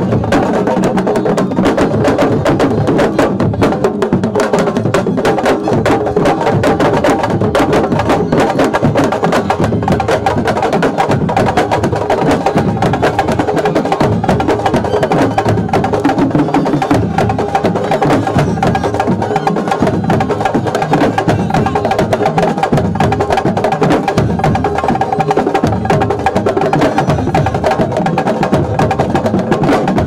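Sabar drums playing a fast, dense, unbroken rhythm of many drum strokes, the drumming that accompanies dancing at Senegalese wrestling.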